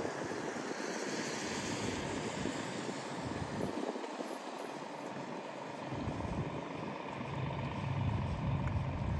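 Road traffic: vehicles passing with steady tyre and engine noise, and a low rumble that grows over the last few seconds.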